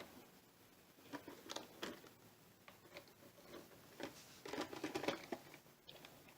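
Light plastic clicks, knocks and rattles from hands working on an RC truck's wheel: wheels and tires being handled and fitted. The noises come scattered, with a busier stretch about four and a half seconds in.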